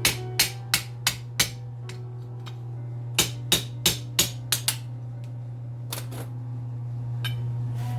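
Sharp metal-on-metal hammer blows knocking a steel bushing out of an old furnace blower motor's cast end housing: a quick run of about five strikes, a pause, a second run of about six, then a few single knocks, over a steady low hum.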